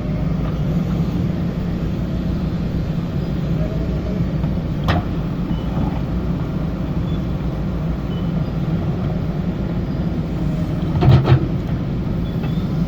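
Diesel engine of a JCB backhoe loader running steadily under work, with a sharp knock about five seconds in and a louder pair of knocks near the end.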